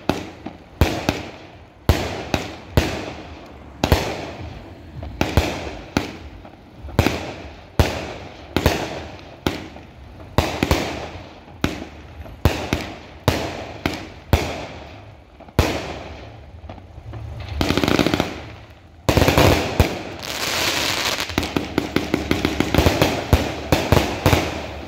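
Multi-shot consumer firework cake firing color bursts and salutes in a steady string, a sharp bang a bit more than once a second, each trailing off. Near the end it swells into a rush and then a dense run of rapid crackling.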